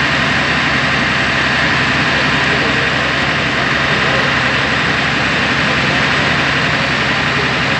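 Fire truck engine running steadily: a constant, unbroken drone with a steady hiss over it.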